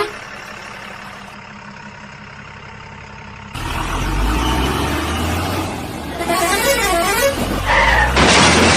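Cartoon vehicle sound effects: after a quiet stretch, an engine starts running about three and a half seconds in. A wavering up-and-down tone joins it, and a horn honks near the end.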